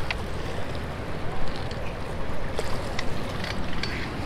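Steady rush of water pouring through a dam spillway, with a low rumble, and a few light clicks and knocks scattered through it.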